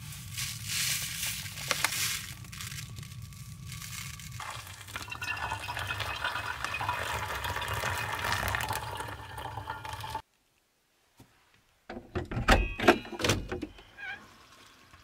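Coffee grounds rustling into a paper filter, then hot water poured steadily from a kettle onto the grounds in a pour-over cone for about five seconds. The pouring cuts off suddenly, and a couple of seconds later comes a quick cluster of clicks and knocks as a screen door is handled.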